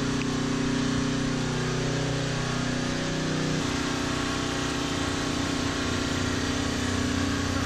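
Small engines running steadily: a generator and a side-by-side utility vehicle idling. A lower hum drops out about three and a half seconds in.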